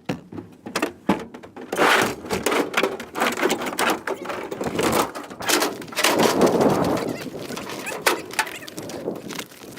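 A run of irregular knocks, thuds and scraping noises, with no steady rhythm.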